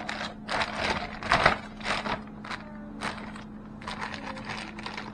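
Irregular rustling, scraping and knocking of someone moving about and handling things at close range, over a faint steady hum.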